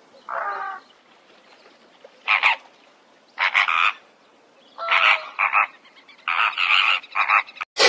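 An animal giving a series of short croaking calls, six or so about a second apart, the later ones in pairs.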